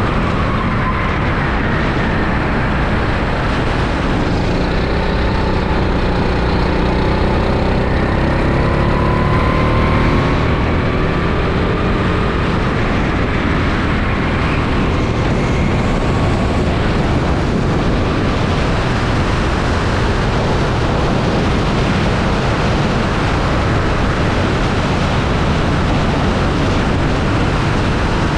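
Rental go-kart engine running at speed, its pitch rising and falling through the first ten seconds or so, under a heavy, steady rush of wind noise on the onboard camera.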